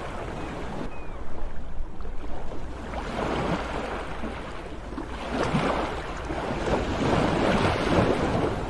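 Ocean surf: waves breaking and washing in with a steady rush. The sound swells once about a second in and more strongly from about halfway until near the end, over a low steady rumble.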